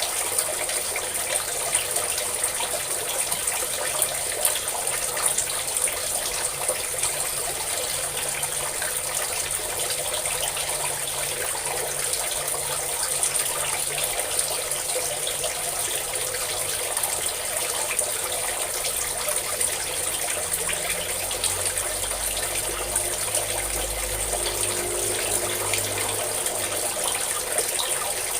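Steady stream of running water pouring and splashing, with a faint low hum coming in for a few seconds near the end.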